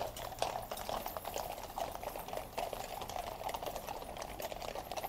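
Shod hooves of a column of Household Cavalry horses clopping on the road: many overlapping hoofbeats in a dense, irregular patter with no single steady rhythm.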